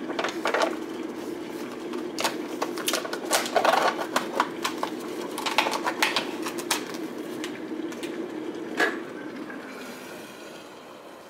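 Paper-foil lid being peeled and torn off a plastic instant oatmeal cup: a run of crinkles, rips and clicks as the cup is handled on a stone countertop. Under it is a steady low hum that fades out about a second before the end.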